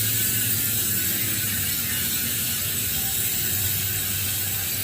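Bicycle rear freehub (Pops Pro 1 hub, three pawls with three-tooth engagement) buzzing as the wheel freewheels: a loud, fast, dense ratcheting click, steady throughout.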